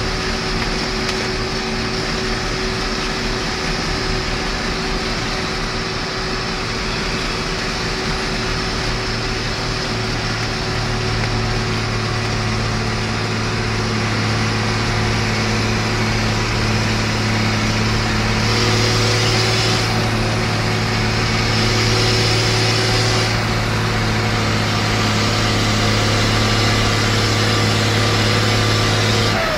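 IHC (International Harvester) 1255 tractor's six-cylinder diesel engine running steadily under way on the road, heard from the driver's seat. Its note grows stronger about a third of the way in and drops away right at the end.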